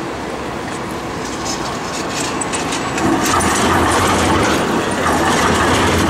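Z3-class Melbourne tram running past at low speed, its motors humming and its wheels clicking over the track, getting louder about three seconds in as it comes close.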